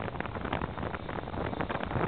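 12-valve Cummins inline-six turbodiesel running under way through a homemade muffler on a 4-inch turbo-back exhaust, heard from the truck bed, with wind buffeting the microphone.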